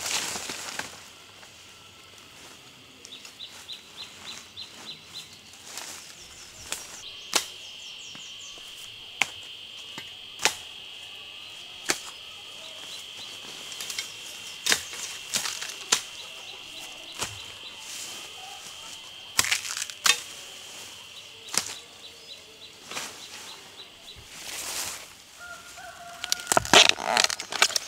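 Rustling of ferns and dry bamboo leaves, with scattered sharp snaps and cracks, as a person moves through forest undergrowth harvesting red bamboo shoots. A dense burst of rustling and snapping comes near the end. A steady high-pitched drone runs through the middle.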